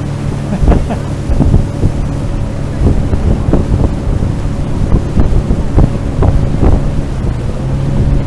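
Outboard motor of a small aluminium boat running steadily under way, a constant engine hum, with wind buffeting the microphone and water rushing past the hull.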